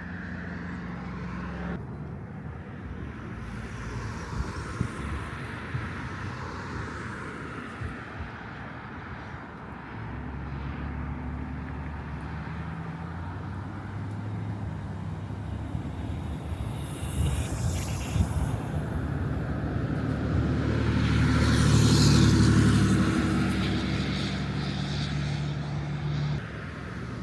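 Road traffic: vehicles driving past, with one engine growing louder to a peak about four-fifths of the way in and then fading.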